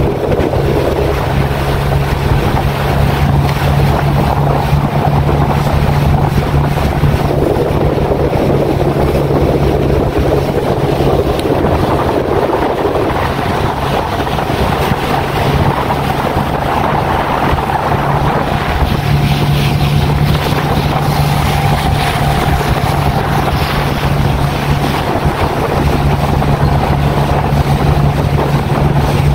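Small boat's outboard motor running steadily while under way, a constant low hum, with wind buffeting the microphone.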